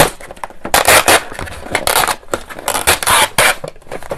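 Paper lid being peeled off a Peyang instant yakisoba container at close range: loud crinkling and scraping in several bursts, around one, two and three seconds in.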